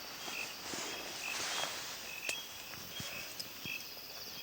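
Rural outdoor ambience: a short high chirp repeating every half second to a second, with a faint insect trill and a few light clicks and rustles.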